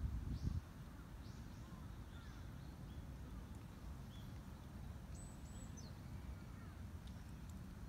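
Scattered bird chirps and short whistles, one a flat high note with a falling end about five seconds in, over a steady low outdoor rumble. A louder low rumble cuts off about half a second in.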